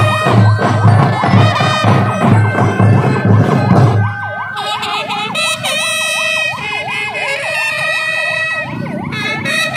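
Band music with a strong, regular drumbeat. About four seconds in it gives way to a vehicle siren yelping rapidly up and down in pitch.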